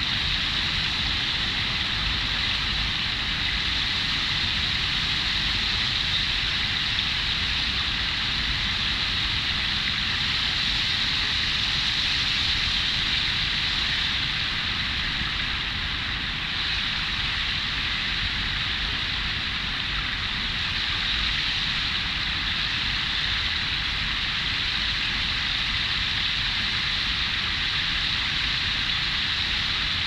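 A small stream bubbling and flowing steadily: a continuous hiss of running water.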